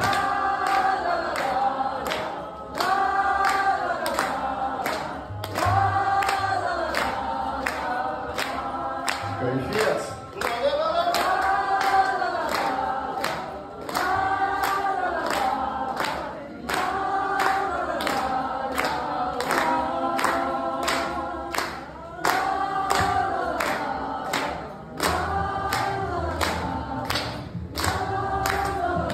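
A roomful of people singing a melody together in rising-and-falling phrases about every two seconds, over a strummed acoustic guitar, with a steady beat of hand claps or strums.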